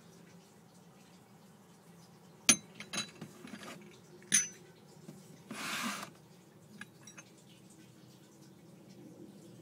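Limoges porcelain demitasse cups clinking against their saucers as they are handled: a sharp clink about two and a half seconds in, a few lighter taps, another clink, then a brief scraping rustle.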